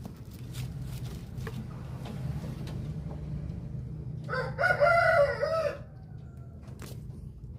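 A rooster crows once, a call of about a second and a half a little after halfway. A steady low hum and a few faint clicks lie underneath.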